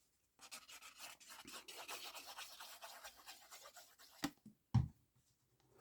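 Hands handling card and craft supplies: faint, quick scratching and rustling for about three seconds, then two soft knocks near the end.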